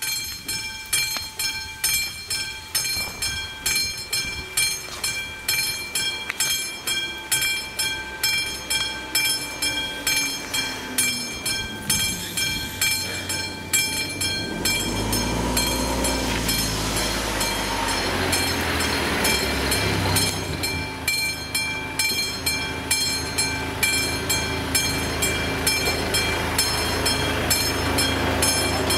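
Level-crossing warning bell ringing in a steady quick rhythm, about three strikes every two seconds: the crossing is warning of a train. A train's deep rumble builds about a third of the way in and is loudest around the middle, under the ringing.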